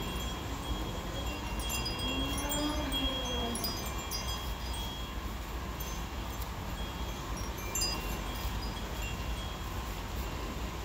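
Wind chimes ringing, several high tones held and overlapping, over a steady low rumble. A lower tone slides up and back down about one to four seconds in.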